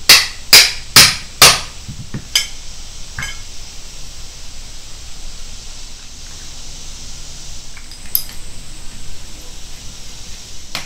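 Hammer striking the steel steering shaft and support bracket of a riding mower: four hard metal blows about half a second apart, then a few lighter taps. A single sharp clink comes near the end as the metal parts are handled.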